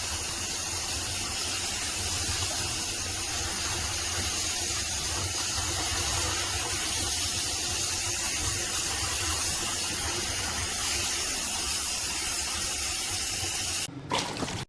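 Water spraying steadily from a pet shower hose attachment in a bathroom tub, a constant hiss with a low hum under it; it breaks off briefly near the end.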